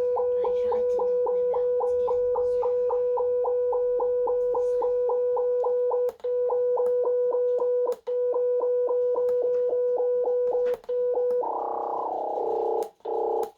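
Breadboard synthesizer circuit sounding through its small speaker: a steady electronic tone on one pitch, chopped into a quick even pulse of about five a second, cutting out briefly three times, then turning into a denser, rougher buzz near the end. The circuit is miswired, so it is not stepping through notes as the intended sequencer should.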